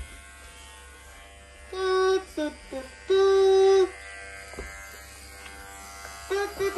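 Electric hair clipper buzzing steadily, with a child's voice singing two loud held notes over it, the first about two seconds in and a longer one from about three to four seconds in.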